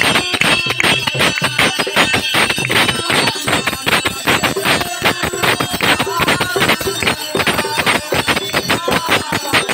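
Devotional music at a Hindu puja: dense, fast rhythmic percussion with voices rising over it now and then.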